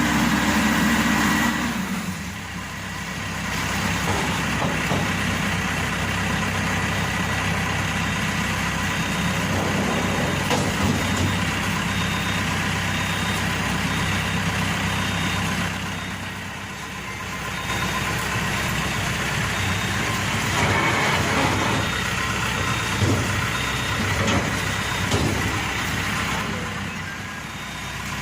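Maxxi Bimo Evo 102 L combine harvester's engine running steadily. Its level dips briefly three times, about 2 seconds in, around the middle and near the end.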